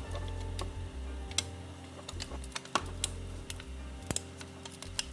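Irregular sharp clicks and taps of small hand tools and parts, typical of a phone being worked on, over soft background music with a pulsing bass.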